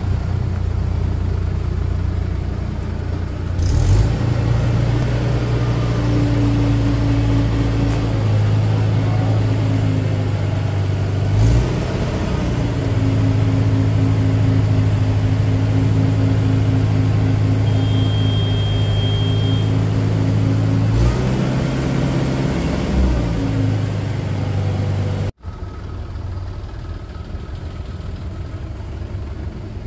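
Tractor diesel engine running steadily while hauling a trailer loaded with earth, its engine note shifting a few times. About 25 seconds in it cuts off abruptly to a quieter engine running.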